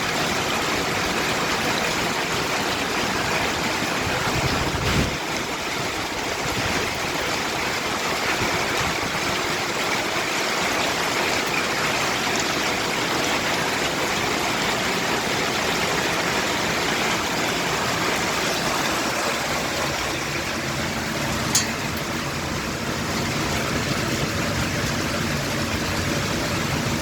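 Heavy rain mixed with falling hail, a dense steady noise without a break. There is one sharp knock about three-quarters of the way through.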